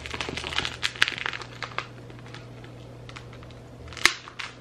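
A stiff holographic plastic potting mat being rolled up by hand, the sheet crackling and clicking, busiest over the first two seconds. One sharp click stands out about four seconds in.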